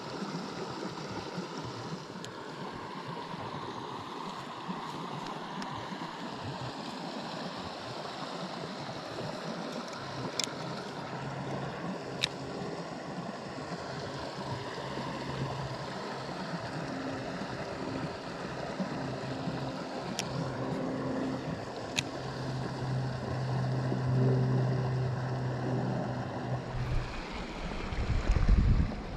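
Mountain creek flowing steadily over rocks, with a few sharp clicks in the middle and a low hum with overtones joining for much of the second half. A loud low thump near the end.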